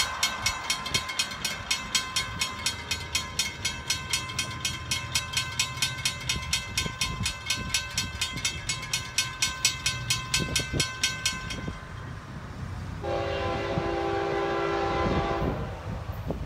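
Railroad grade-crossing bells ringing rapidly, about three to four strikes a second, as the crossing gates lower; the bells fall silent about twelve seconds in, once the gates are down. About a second later the approaching freight locomotive's multi-note air horn sounds one long blast of about two and a half seconds.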